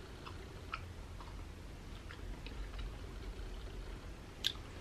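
Faint chewing with small, scattered mouth clicks, one sharper click near the end, over a low steady room hum.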